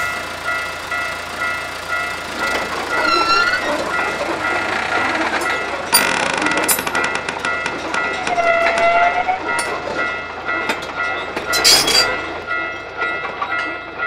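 A train running past, with a steady high horn-like tone held over the rumble. Clusters of sharp clattering clicks come about halfway through and again near the end, and there are two short squeaks.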